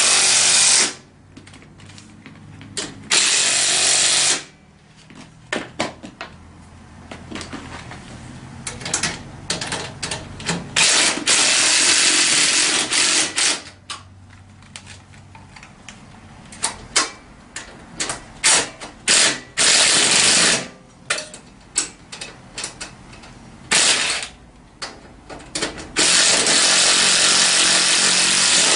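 Power tool driving bolts home in bursts of one to three seconds, the longest near the end, with short clicks and knocks of tool and hardware between the runs, as the ATV's front rack bolts are tightened down.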